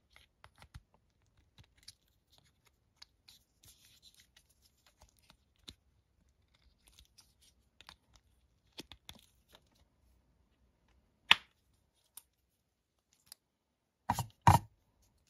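Thin protective plastic being worked and slid off a plastic action figure by hand: faint crinkling and rustling with scattered small clicks. Sharper plastic clicks come about eleven seconds in and twice in quick succession near the end.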